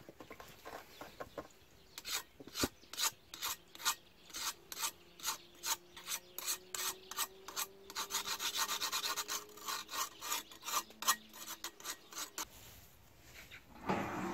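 Repeated rasping scrapes on a forged steel knife blade sitting in a tub of water, about three strokes a second, running together into a steady scrub for a couple of seconds past the middle. Near the end, a small metal toaster-oven door is pulled open.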